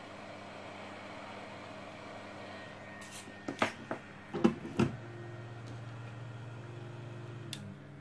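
Hot-air gun of a soldering station blowing a steady hiss of air, which stops about three seconds in. A handful of sharp knocks and clatters follow as tools and the vacuum's cable reel are handled, then a low steady hum.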